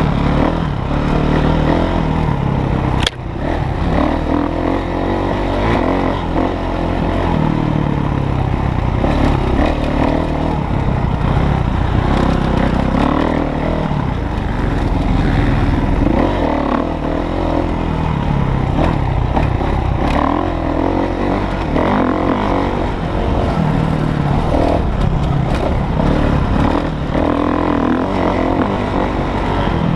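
Dirt bike engine heard close up from the bike, revving up and falling off again and again as it is ridden hard round a dirt track. A sharp click about three seconds in.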